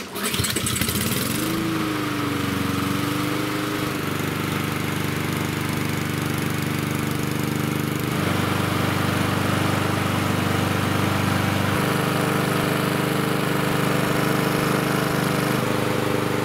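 Honda GCV160 lawnmower engine starting at once and running up to speed within about two seconds, then running steadily. It starts straight away now that a new thermowax auto-choke cartridge lets the choke close fully when cold.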